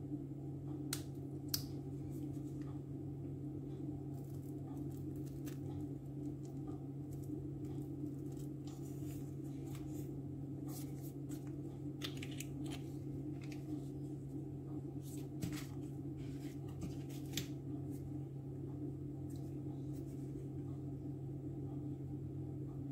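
Garlic puree being squeezed from a tube onto raw seasoned chicken pieces: scattered short, soft handling noises and light clicks over a steady low hum.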